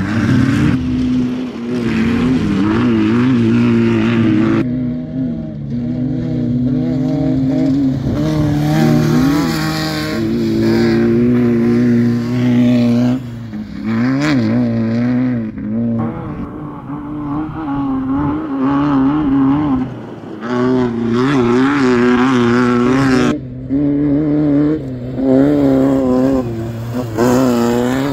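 Off-road race cars, among them a VW Baja Bug, running past one after another, engines revving with a pitch that wavers up and down over rough ground. The engine sound changes abruptly a few times as one car gives way to the next.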